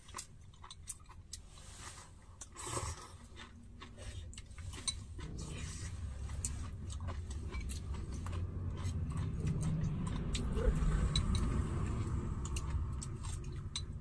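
Close-up eating sounds: light clicks of chopsticks against porcelain bowls and chewing. A low rumble swells from about five seconds in and fades just before the end.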